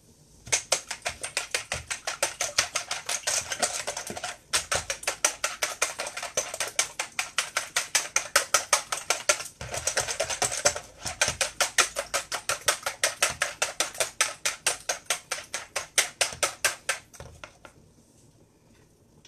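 Wire whisk beating raw eggs in a plastic bowl: fast, even clicking of the wires against the bowl, about four to five strokes a second. The beating pauses briefly twice and stops shortly before the end.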